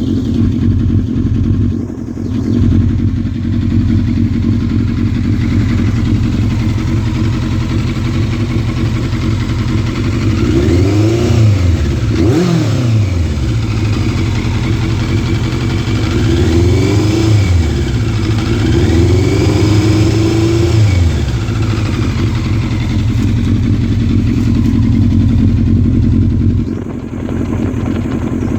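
Yamaha Fazer 600 inline-four motorcycle engine idling with a misfire. It is revved up and let fall back a few times in the middle, the last rev held for a couple of seconds.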